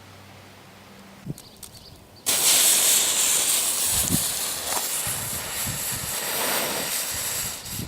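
A lit ground firework hissing loudly: a few faint crackles of the burning fuse, then about two seconds in a sudden, steady, spraying hiss as the firework ignites and spews.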